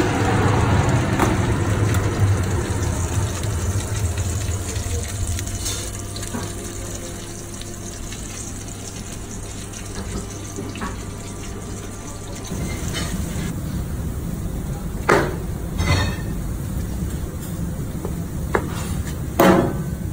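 A commercial combi oven's steady hum and hiss with its door open on a roasting joint, then a few sharp knocks near the end.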